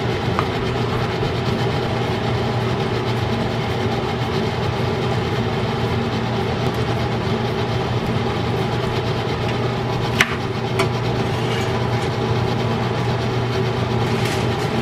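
Kitchen extractor fan running with a steady hum. Two sharp clinks come a little after ten seconds in.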